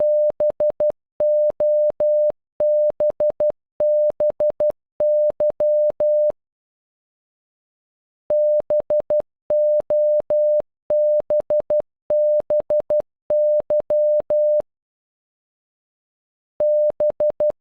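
Synthesized Morse code beeps spelling BOBBY (-... --- -... -... -.--): a single steady mid-pitched tone keyed in short dots and long dashes. The word plays through twice with a gap of about two seconds between, and starts a third time near the end.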